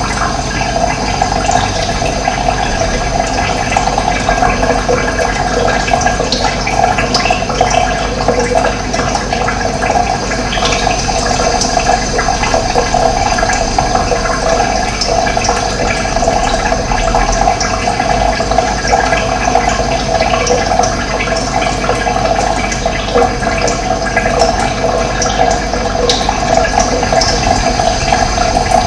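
Steady rush of running water, loud and unbroken.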